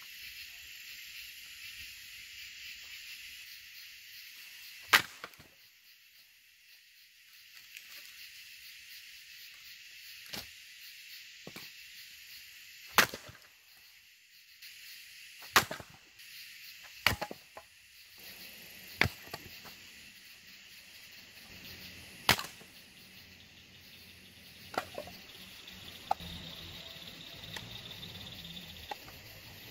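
Axe splitting a firewood log: about a dozen sharp wooden strikes at irregular intervals a second to a few seconds apart, the loudest about five seconds in. A steady chorus of night insects runs underneath.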